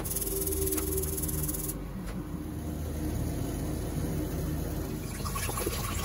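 Water poured from a kettle into a cooking pot, a splashing pour near the end. Before it comes a rapid high ticking lasting about the first two seconds, over a steady hum.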